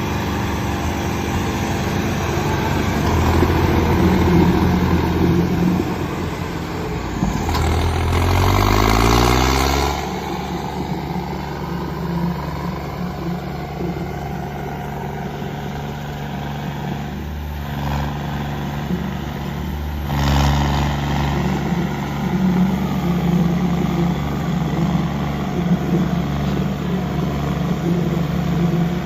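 Tractor diesel engine running under load. About eight seconds in its pitch climbs as it revs up, then it drops back abruptly and carries on steadily, with another rise in level around twenty seconds in.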